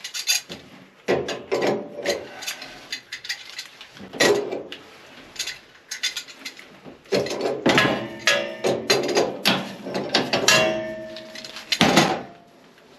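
Hand tools clanking and ratcheting on metal in irregular strokes, busier from about seven seconds in, with brief metallic ringing near the eleventh second.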